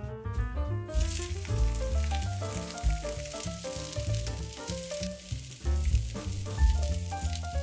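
Food frying in a hot pan, a steady sizzle that starts about a second in, under background music with a melody and steady bass.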